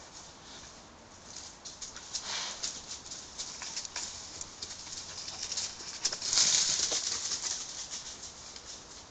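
Dry leaf litter and twigs rustling and crackling as wild boar root and walk through the forest floor, in uneven bursts with many small snaps, loudest about two seconds in and again around six to seven seconds in.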